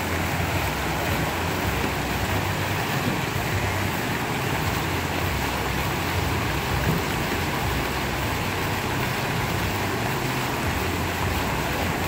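Steady rush of water from a big waterfall, with a low rumble underneath.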